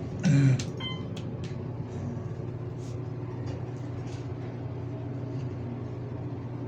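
Hydraulic elevator's pump motor running with a steady hum as the car travels up. There is a brief loud sound about half a second in.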